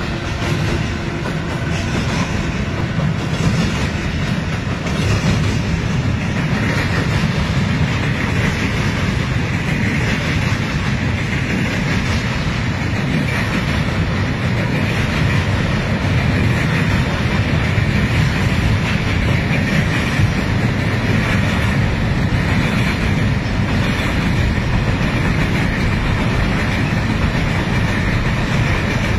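Wagons of a mixed freight train rolling across a steel truss railway bridge: a continuous low rumble and clatter of wheels on the rails. From about seven seconds in, a steady higher hiss rides above it.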